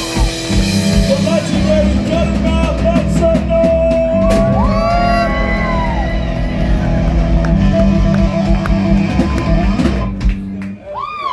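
Live rock band playing with drums, guitar and bass under a singer's vocals. The music dips briefly near the end, with a quick rising-then-falling sweep in pitch.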